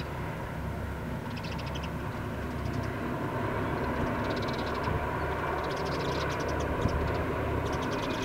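Distant drone of a 3TE10M diesel locomotive's two-stroke opposed-piston diesels working under load with a freight train, steady and slowly growing louder as it approaches. Short bursts of high-pitched bird chirping come and go over it.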